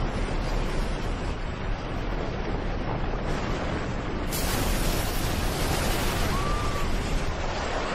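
Film sound effects of a giant tsunami wave: a dense, steady rush and rumble of water, turning hissier about four seconds in.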